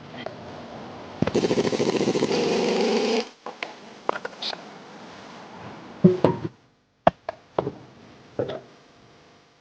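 An impact wrench runs in a rapid rattle for about two seconds. It is followed by a series of sharp metal clinks and knocks from tools and parts being handled.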